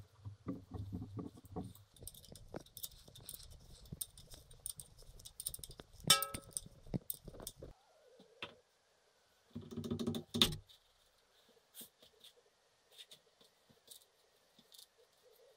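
Scattered clicks and knocks of parts or tools being handled, with one loud clank about six seconds in that rings briefly and a short low buzz around ten seconds.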